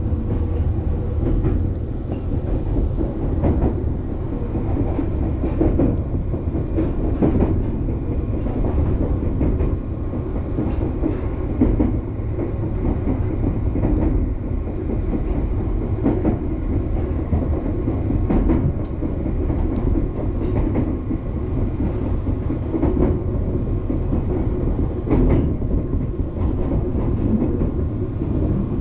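Passenger train running at speed, heard from inside the carriage: a steady low rumble with the wheels clicking over rail joints every second or two.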